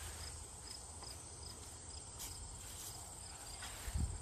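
Insects, most likely crickets, trilling steadily, with a higher chirp repeating a few times a second over a low outdoor rumble; a single low thump comes just before the end.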